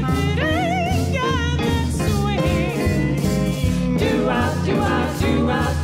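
Swing band playing live, with female voices singing a wavering, vibrato-laden line in the first second or two over a steady rhythm section.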